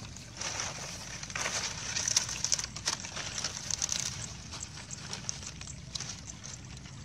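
Dry leaf fronds rustling and crackling as they are handled and laid over a basket fish trap. The crackling is busiest in the first half.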